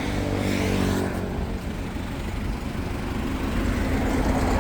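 A motor vehicle's engine running close by, a steady low rumble with a pitch that sags slightly in the first second or so and picks up again near the end.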